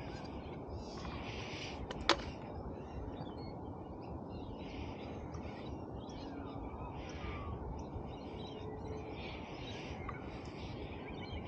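Steady wind rumble on the microphone, with birds calling in the background about every second and a single sharp click about two seconds in.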